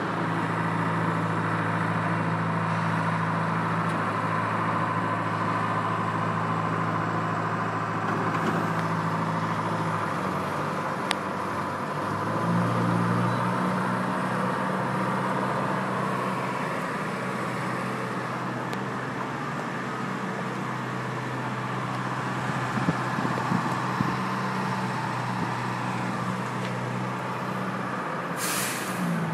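Engine of a small self-propelled track maintenance machine running as it travels along the rails: a steady hum whose pitch shifts about a third of the way in, over constant city background noise. A brief hiss comes near the end.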